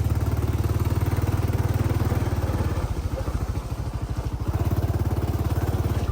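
Honda XRM underbone motorcycle's small single-cylinder four-stroke engine running with a fast, even putter. The engine eases off about halfway through, then picks up again near the end.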